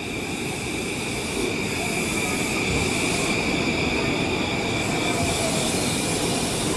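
JR E235 series electric commuter train creeping into the platform at low speed: a steady rumble of wheels on rail, with a constant high whine held throughout.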